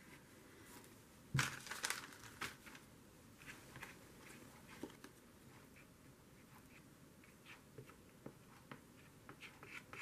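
Paper and cardstock being handled and pressed down during gluing: a louder burst of rustling and crinkling about a second and a half in, then faint scattered rustles and small taps.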